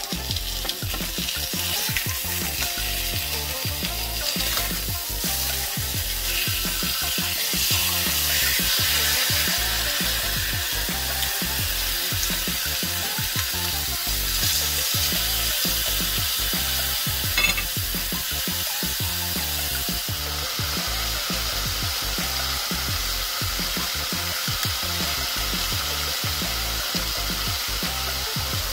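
Seasoned chicken breasts sizzling steadily as they sear in oil in a nonstick skillet, with a single sharp click partway through. Background music plays underneath.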